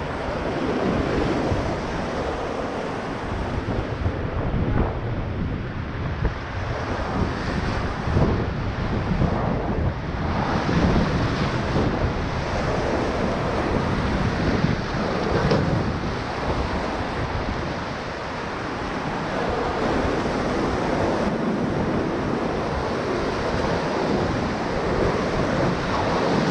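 Whitewater river water rushing steadily around a raft, with wind noise on the microphone.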